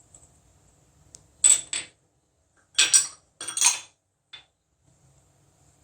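Kitchen utensils clinking and scraping against a bowl and plate in a few short, sharp knocks with a faint metallic ring, as chopped green coriander is tipped onto the flour.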